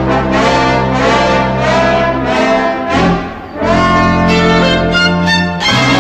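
Orchestral brass music with trumpets and trombones playing loud, sustained chords. It breaks off briefly about halfway through, then a new chord comes in near the end.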